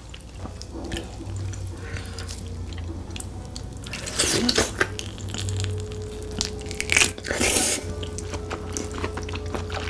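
Close-miked wet eating sounds: smoked pork dipped into thick cheese sauce, then bitten into and chewed. Two louder wet bursts come about four and seven seconds in.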